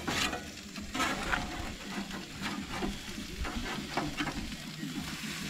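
Metal spatula scraping and clicking against a wire-mesh grill grate in a string of irregular strokes as it is worked under marinated fish fillets. Under it runs a faint steady sizzle of the fish cooking over charcoal.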